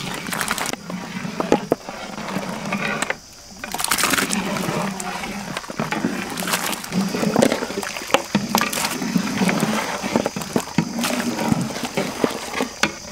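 Pieces of goat chest bone dropped by hand into a large pot of steaming water: irregular splashes and knocks against the pot.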